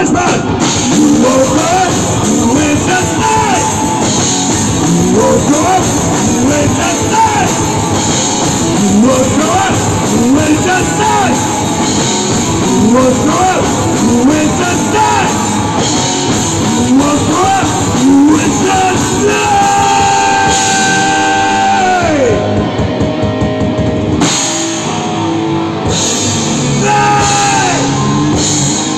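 Heavy rock band playing live: drum kit, electric guitars and a singer on a microphone. About two-thirds of the way through, a long held note slides down in pitch.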